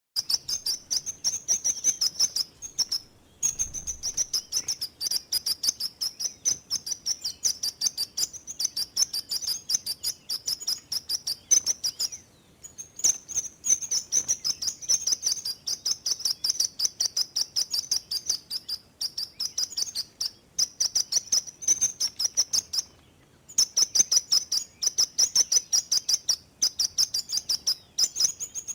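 Sparrow singing a long, high, rapid trill of fast even pulses, broken by brief pauses about 3, 12 and 23 seconds in.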